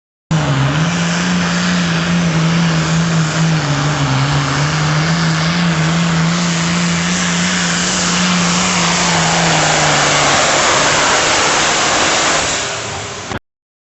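Hot farm class pulling tractor's engine running flat out during a pull, its note holding steady for about ten seconds, then breaking up and fading near the end. The sound starts and cuts off abruptly.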